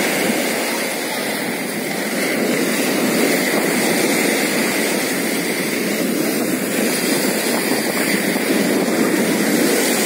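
Rough sea surf: waves breaking and washing up onto a sandy beach, a steady noise that swells slightly and eases again.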